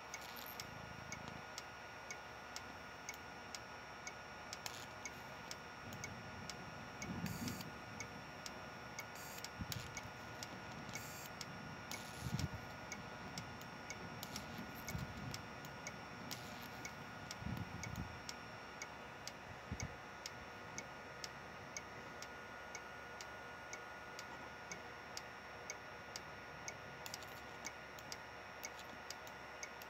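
Homemade flyback transformer throwing small high-voltage sparks that snap at an even rate of about one and a half a second, over a faint steady high whine. A few dull thumps come between the snaps in the middle stretch.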